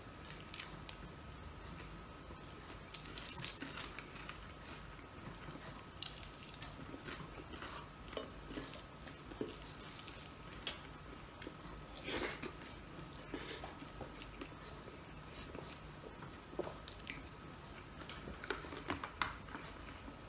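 Quiet eating by hand: chewing and small crunches of fried fish, with scattered soft clicks and taps as fingers pick at the fish and rice on a plate, a few a little louder about three seconds in, around twelve seconds and near the end. A faint steady hum lies underneath.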